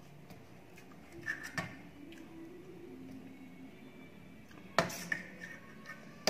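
Metal serving spoon clinking and scraping against a steel bowl and a metal plate while chicken curry is ladled out. There are a few light clinks, then one sharp, loud clink just before five seconds in, followed by smaller taps.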